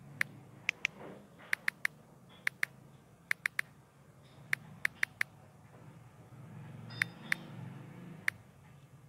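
Key-tap clicks from a smartphone's on-screen keyboard, one sharp click per letter typed, coming in quick irregular runs of two or three with a pause of nearly two seconds past the middle. A faint low hum lies underneath.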